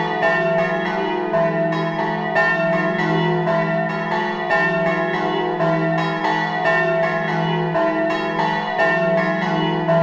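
Several church bells ringing together in a stone bell tower, struck in quick succession several times a second so that their tones overlap in a continuous peal.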